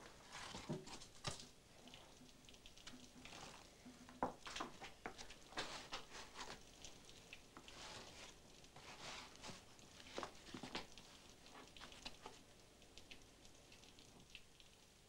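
Faint, irregular rustles, taps and scrapes of kitchen work: a bag handled and dough worked by hand on a floured table.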